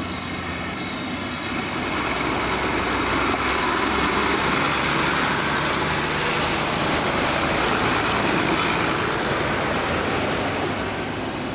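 Ford farm tractor's diesel engine running as it drives past close by. It grows louder a couple of seconds in, stays up through the middle, then eases off as it moves away.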